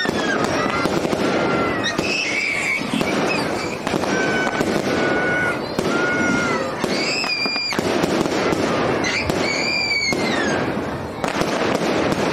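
Fireworks display: continuous bangs and crackling, with several high whistles that glide down, hold steady or arch up and down over the top.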